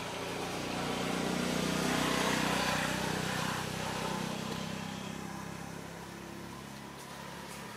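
A motor vehicle passing by: a low engine hum and road noise swell to a peak about two seconds in, then slowly fade away.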